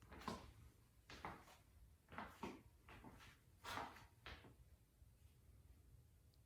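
Faint handling noises: a quick series of soft scrapes and rustles that die away about four and a half seconds in.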